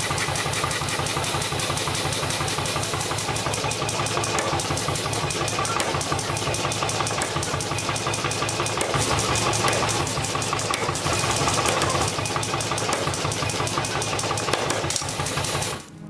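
Foot-pedal power hammer pounding rapidly and steadily on a handled chisel, notching a red-hot bar; the hammering stops abruptly near the end.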